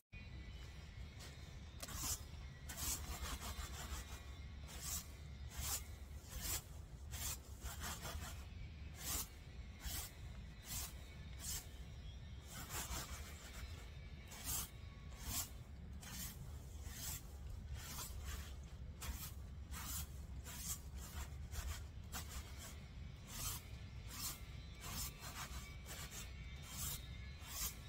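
Perilla seeds being winnowed in a woven bamboo winnowing basket: a rhythmic rasping rustle as the seeds are shaken and slide across the weave, about two strokes a second.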